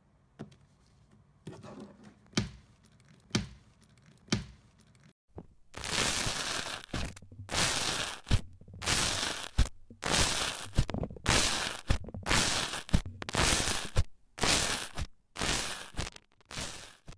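A few sharp pops about a second apart from slime squeezed in a plastic bag. Then about a dozen loud bursts of crunching and crackling as a bead-textured crunchy slime in a plastic tub is pressed, roughly one a second.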